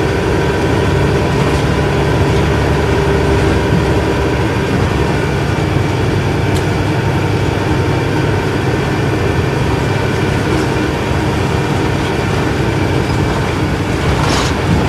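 Isuzu Erga Mio bus's inline-six diesel engine running steadily under way, heard from inside the cabin. There is a brief click near the end.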